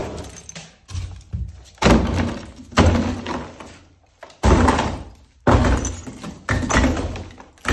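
Sledgehammer blows breaking up a small brick fireplace: about eight heavy strikes roughly a second apart, with brick and rubble breaking and falling after each.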